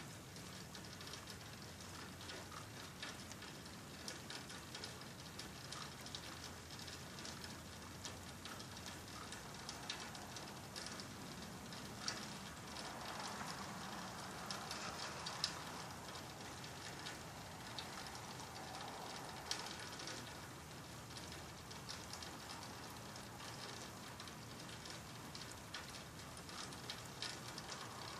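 Rain falling steadily, with close drops ticking on a nearby surface. The rain swells for several seconds in the middle.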